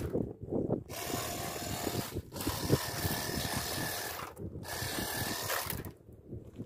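Cordless battery pressure washer spraying water, with the hiss of the jet and a faint steady pump whine, in three bursts broken by brief trigger releases. It stops near the end.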